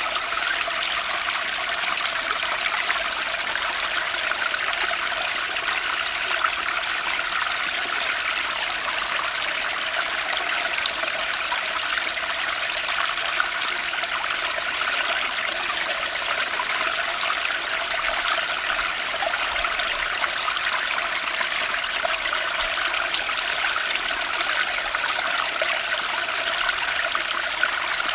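Water running steadily: an even, continuous rush of splashing with little low rumble.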